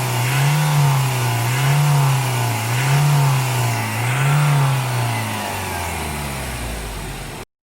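Ford Everest turbodiesel engine revved in about five quick blips, then settling to a steady idle before cutting off abruptly near the end. A fainter whistle rises and falls with each blip: the sign of a split turbo hose leaking boost.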